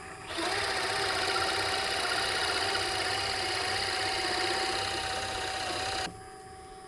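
Drill press boring into a walnut mallet head: the motor runs on steadily as the bit is plunged back into the wood and cuts. It stops abruptly about six seconds in.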